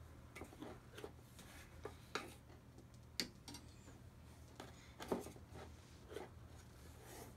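A plastic spoon scraping and tapping inside a tin of flour as it is scooped out: a string of small, irregular scrapes and clicks.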